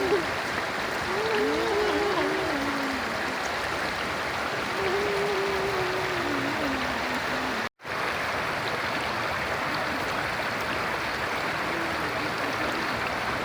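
A stream or small river running steadily, a continuous rushing of water. Faint voices rise and fall over it a few times, and the sound cuts out for an instant about halfway.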